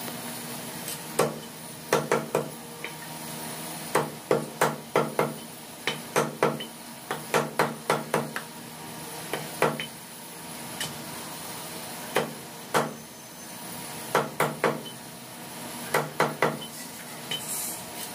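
Heavy meat cleaver chopping a skinned chicken into pieces on a thick wooden chopping block: sharp chops in quick runs of two to five, with short pauses between.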